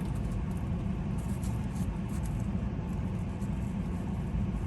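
Steady low rumble of an idling car heard inside the cabin, with a few faint small clicks over it.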